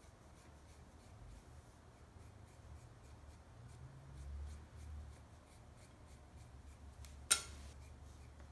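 Faint scraping of a hacksaw blade's teeth shaving clay from the end of a teapot spout, fine-tuning it so the joint fits. A single sharp click about seven seconds in.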